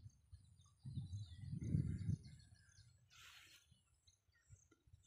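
Faint birds chirping and twittering, with a low rumble of wind buffeting the microphone that swells about a second in, and a short hiss about three seconds in.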